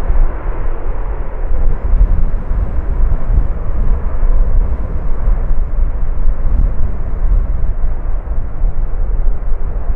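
Boeing 747's four jet engines rumbling as it rolls out down the runway just after landing, mixed with gusty wind buffeting the microphone in a deep, uneven rumble.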